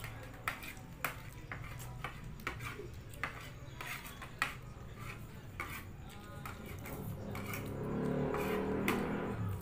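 Spoons and forks clinking and scraping on plastic plates as children eat, a scatter of short sharp clicks. Near the end a louder low hum rises for about two seconds.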